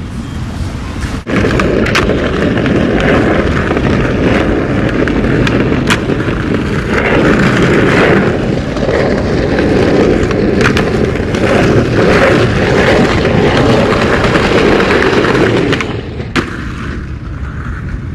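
Skateboard wheels rolling over rough pavement: a steady rolling rumble with a few sharp clacks, easing off a couple of seconds before the end.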